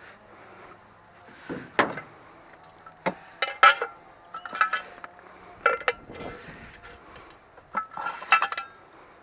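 Pieces of extruded aluminum scrap clinking and clanking against each other as they are handled, in about seven separate clusters of sharp knocks, each with a brief metallic ring.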